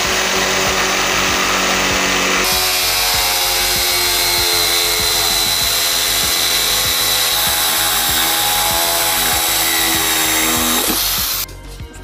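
Corded electric drill running a hole saw through the plastic wall of a bucket, a steady motor whine with the teeth grinding the plastic. Its pitch shifts about two and a half seconds in, and it stops shortly before the end.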